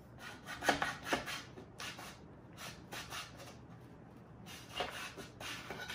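Knife drawn through the slot of a Pampered Chef Close & Cut plastic slicing lid, cutting grape tomatoes held under it: a series of short, irregular scraping strokes.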